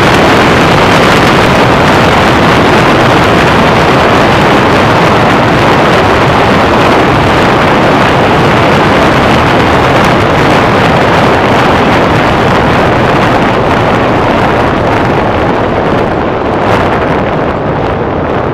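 Mercury Cougar driving at speed, heard through a microphone on its hood: loud, steady wind rush over the microphone mixed with the car's engine and road noise, easing slightly near the end.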